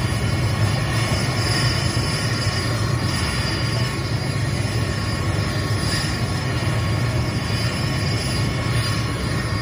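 Mil Mi-8-family helicopter running on the ground with its rotors turning: a steady whine from its twin turboshaft engines over a low, rapidly pulsing rotor beat.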